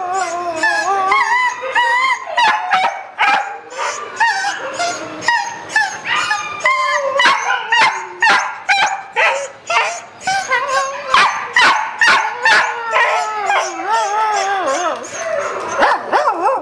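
Several caged dogs barking and crying together: a dense run of sharp barks over long, wavering, high-pitched whining wails from more than one dog at once.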